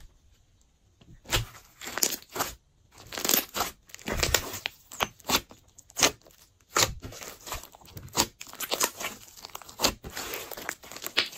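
Glossy slime being squeezed and stretched by hand, giving irregular pops, clicks and crackling, one or two every second.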